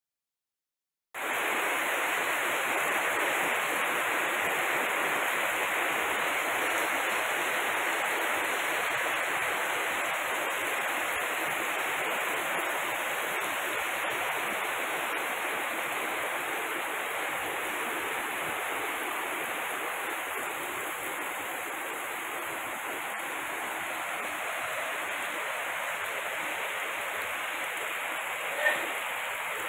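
Heavy rain pouring steadily onto a street, roofs and foliage, starting abruptly about a second in. A single short, sharp sound stands out near the end.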